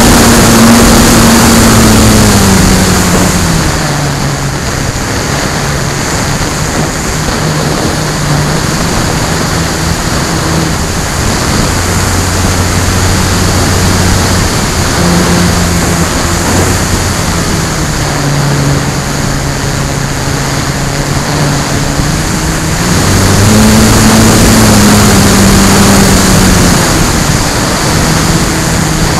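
Electric motor and propeller of an FMS Bf-109 foam RC warbird, heard from a camera on board, under heavy wind rush on the microphone. The motor's hum drops in pitch about three seconds in as the throttle comes back, and rises again about two-thirds of the way through.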